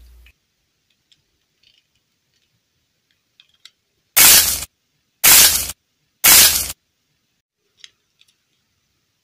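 Three loud, short hissing bursts about a second apart, starting about four seconds in, with only faint clicks of handling before and after.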